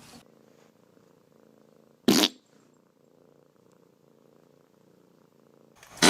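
A cat purring faintly, broken by two short, loud, sharp noises: one about two seconds in and one near the end.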